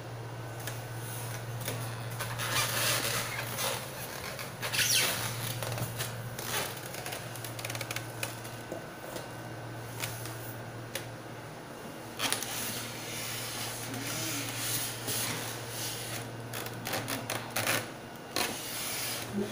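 Packaging being handled during an unboxing: scattered rustles and knocks over a steady low hum.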